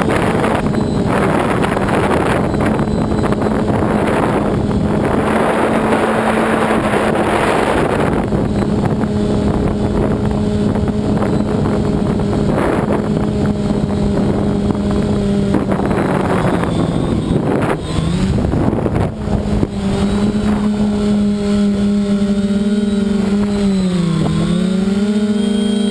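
Multirotor's electric motors and propellers humming steadily, with wind buffeting the microphone in gusts over the first half. Near the end the motor pitch dips and rises several times as the throttle changes.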